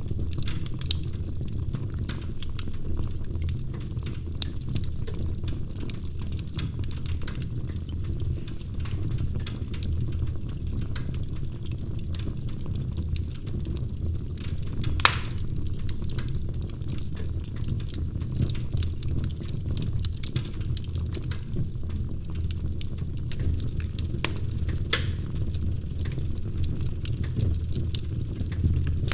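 Wood fire burning in a fireplace: irregular crackling over a steady low rumble, with a few sharper pops, the loudest about halfway through.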